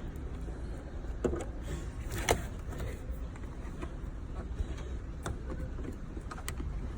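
Scattered light clicks and knocks of plastic parts being handled as a car's brake light bulb and tail light are put back in place, the loudest a little after two seconds, over a steady low background rumble.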